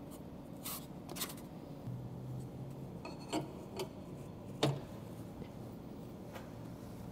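Light metallic clicks and clinks, about five spread over the first five seconds with the last the loudest, as the router bit and collet are handled at a CNC router's spindle during a bit change.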